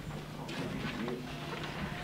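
Soft, irregular footsteps of a person walking on a hard floor, over a steady low electrical hum.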